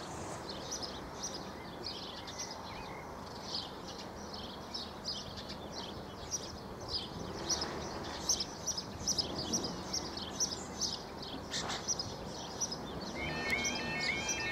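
Small birds chirping steadily over quiet outdoor background noise. About a second before the end, the level crossing's electronic alarm starts, a quiet repeating pattern of rising tones, as the crossing sequence begins.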